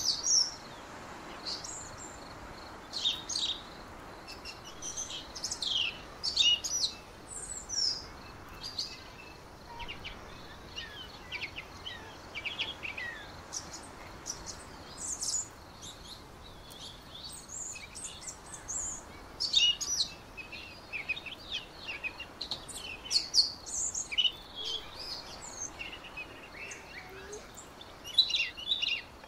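Small songbirds chirping and calling in short, high, repeated notes over a faint steady outdoor background. The calls come thick and fast at first, thin out from about ten seconds in, and pick up again around twenty seconds.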